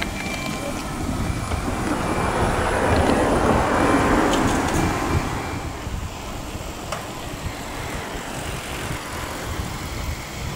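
A passing vehicle, its noise swelling to a peak about three to four seconds in and then fading away.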